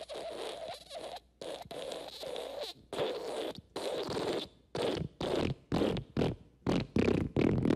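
Fart sound effect: a string of raspy bursts broken by brief pauses. The bursts come shorter and quicker from about five seconds in and run together near the end.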